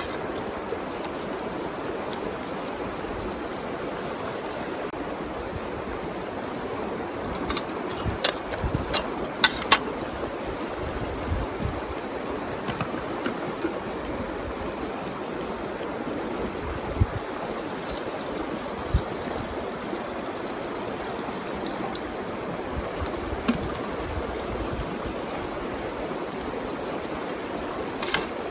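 River water flowing steadily, a constant rushing; a cluster of sharp clicks comes about eight to ten seconds in, with a few single clicks later.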